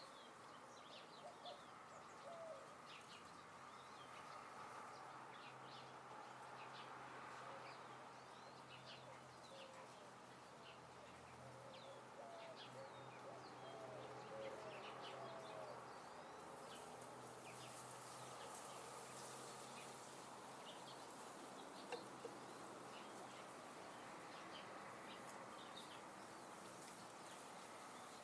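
Faint outdoor ambience of wild birds calling: many short, high chirps scattered throughout, with a few lower short calls, over a soft steady background hiss. A faint low hum runs through the middle stretch.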